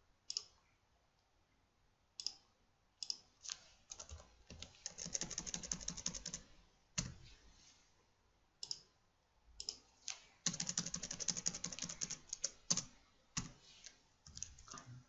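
Computer keyboard typing: scattered single clicks with two quick runs of keystrokes, about five seconds in and again about ten seconds in.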